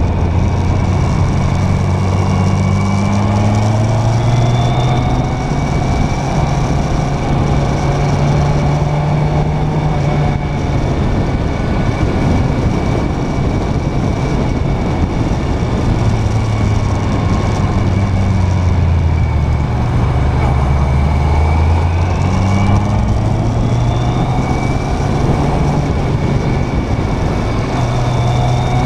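Motorcycle engine running on the move, its pitch climbing and dropping several times with throttle and gear changes, under heavy wind and road noise on the bike-mounted camera.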